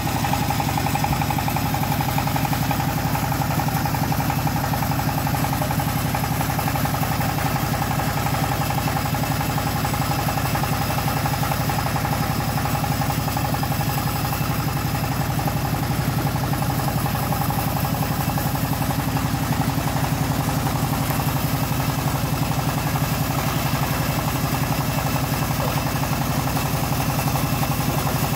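Stationary single-cylinder diesel engine driving a homemade bandsaw mill, running steadily at idle with a fast, even beat.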